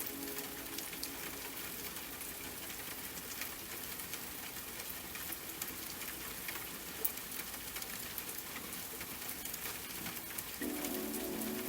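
Steady rain pattering, a dense crackle of individual drop ticks with one sharper tick about seven seconds in. Soft sustained music comes back in near the end.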